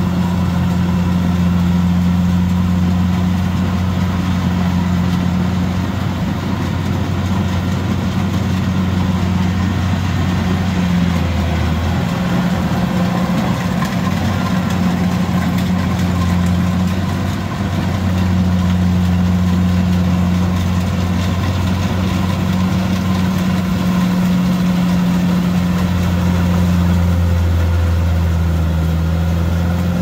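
Rice combine harvester's engine running steadily, a loud low drone that eases off for a few seconds midway and then comes back.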